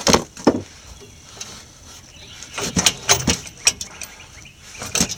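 A string of sharp knocks and clinks, several close together in the middle, from hand tools and parts striking metal during work on a pickup's rear suspension to fit an air bag.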